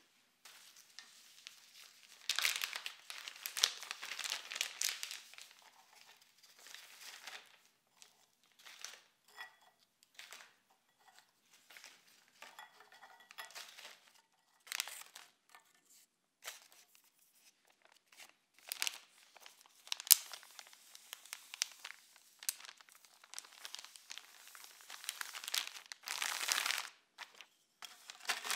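Plastic zip-top bag crinkling and rustling in irregular bursts as biscuits are put into it from a glass bowl, with a few sharp clicks.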